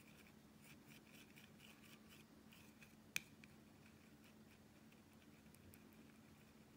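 Faint scraping and tapping of a small tool stirring glitter into gel on a nail-art palette, with one sharp click about three seconds in.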